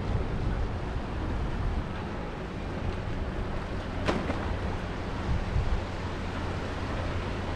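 Wind rushing over the microphone of a handlebar-mounted camera on a moving bicycle, a steady low noise, with one sharp click about four seconds in.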